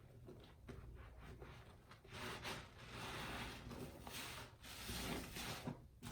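A sponge being squeezed and rubbed, giving a run of soft squishing swells from about two seconds in.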